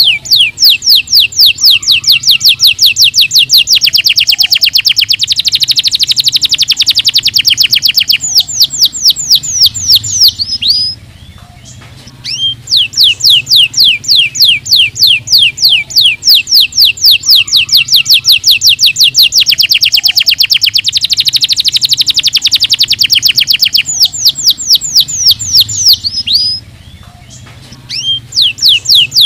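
Canary singing long trills of rapid, evenly repeated high notes, about five a second, with two brief pauses about 11 and 27 seconds in.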